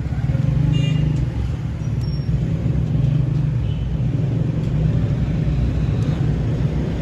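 Steady rumble of road traffic, with vehicle engines running close by.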